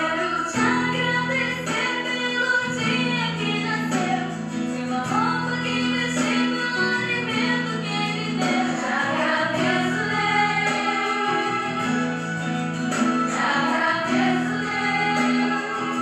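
A short children's Christian song: a woman singing a melody over instrumental accompaniment with held bass notes.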